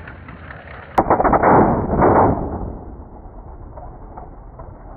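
A nitrous backfire in a Buick drag car's engine: a sharp bang about a second in, then a loud rush of noise that dies away over a second or so into a steady lower noise.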